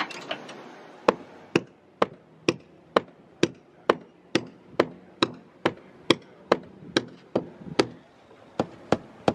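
Mallet blows on the top of a metal sailboat chainplate, struck about twice a second in an even rhythm with a short pause near the end, hammering out a chainplate that is stuck tight in the deck, which he suspects is epoxied in.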